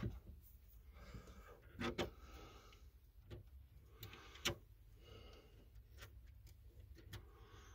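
Small clicks and light knocks of a wire's terminal being fitted onto a stud and the wiring being handled, with soft rustling in between. The sharpest click comes about four and a half seconds in.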